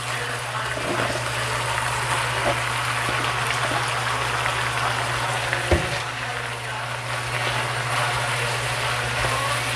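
Chicken pieces sizzling in a frying pan as saluyot (jute mallow) leaves go in and are stirred with a wooden spatula, a steady frying hiss over a low steady hum. A single knock sounds near the middle.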